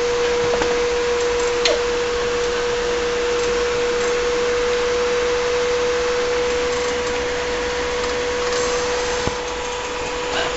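A machine running steadily: an even hiss with a constant high hum.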